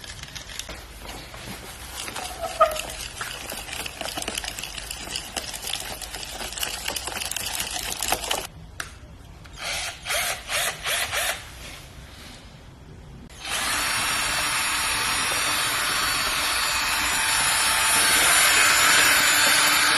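Electric hand drill used as an egg beater, its whisk spinning in a bowl to whip eggs. It is switched on in a few short bursts, then runs steadily for the last third.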